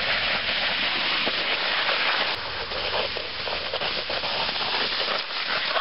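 Steady rushing hiss of wind blowing across the microphone, with no clear rhythm or strokes.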